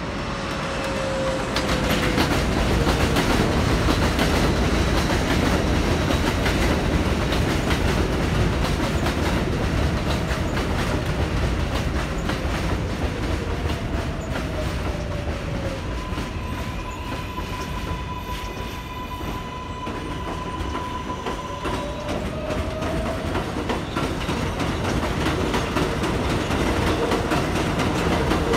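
Kawasaki R188 subway trains on an elevated line, with a steady rumble and clatter of wheels on the track. Electric motor whine glides down near the start and again around the middle, holds as a steady higher whine for several seconds, then glides up as a train pulls away.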